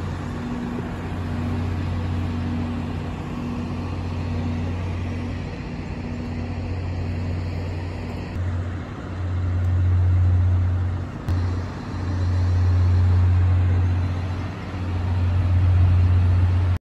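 Heavy fire-engine diesel running steadily with a low hum. In the second half the hum swells and dips several times.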